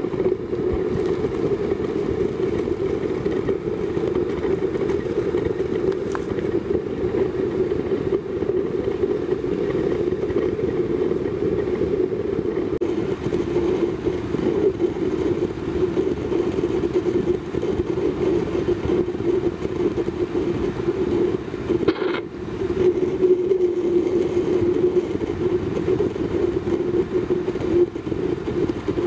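Fire-extinguisher waste-oil stove burning under forced air from its blower pipe, giving a steady deep rumble. The sound breaks briefly about 22 seconds in.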